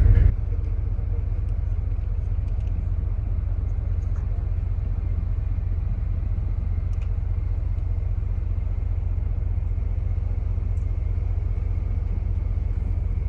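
Steady low rumble of wind buffeting the microphone, with almost nothing higher-pitched above it.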